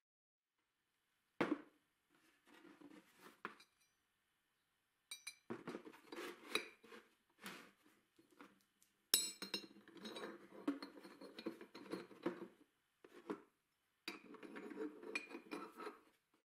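Steel pins with eye-bolt heads and a steel bracket clinking and clattering on a wooden bench as they are handled and the pins slid through the bracket's holes. There is a single sharp clink first, then bursts of metal rattling and scraping in the second half.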